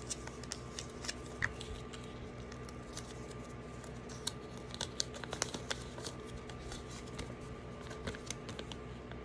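Faint, scattered clicks and taps of a Kinder Joy toy's small plastic pieces being handled and fitted together, busiest around the middle, over a faint steady hum.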